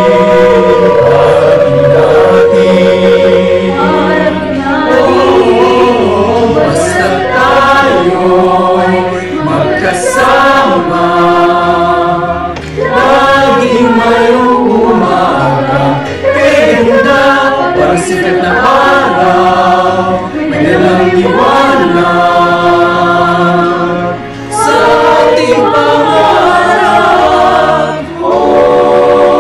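Glee club of young men and women singing a slow song together in several parts, mixed from separate home recordings into a virtual choir. The singing runs in long phrases with brief breaks between them.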